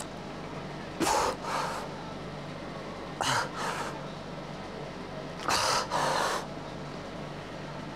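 A man's hard, forceful breathing under the strain of overhead triceps extensions: three pairs of quick, loud breaths about two seconds apart.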